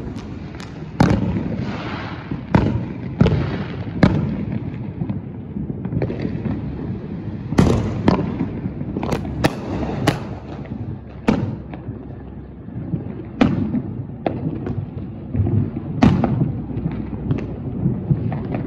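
Consumer fireworks going off: an irregular string of sharp bangs and cracks, roughly one a second and sometimes two in quick succession, over a steady low rumble.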